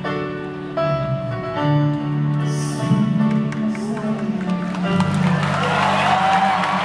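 Live band playing on stage: sustained keyboard chords over a bass line. About five seconds in, crowd noise swells in over the music.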